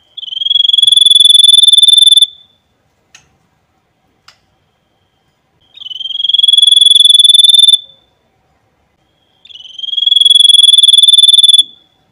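White-breasted babbler (Stachyris grammiceps) giving its 'nembak' call: three loud, long, high whistled notes of about two seconds each, each opening with a short rising slur and then held steady. Two faint ticks fall between the first and second notes.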